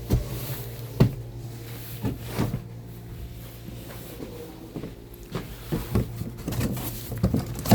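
Irregular knocks and clatters over a steady low hum, with a busier run of knocks in the last couple of seconds.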